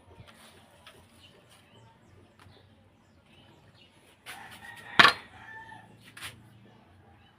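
A rooster crowing about four seconds in, with a sharp knock at its loudest point and a smaller click shortly after.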